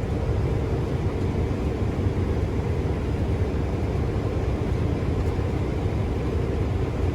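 Steady low engine rumble of a running vehicle.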